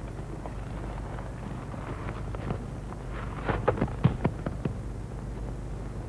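Steady low hum and hiss of an old film soundtrack. About three and a half seconds in comes a short run of sharp clicks or taps.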